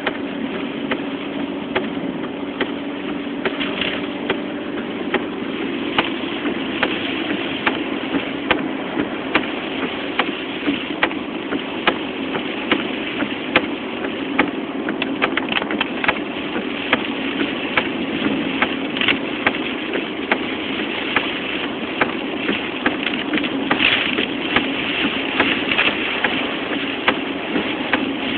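Steady engine and tyre noise heard from inside a moving car's cabin, with frequent sharp ticks scattered irregularly through it.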